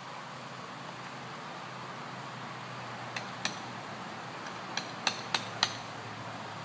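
A hand tool striking metal in sharp metallic clinks: two about three seconds in, then four more in quick succession, about three a second, near the end.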